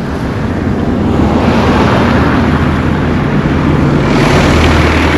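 Road traffic: a motor vehicle's engine running low and steady, with tyre and road noise that swells about a second in and again near the end as vehicles pass.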